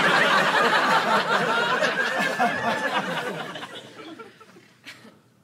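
Audience laughing, strong at first and dying away over about four seconds.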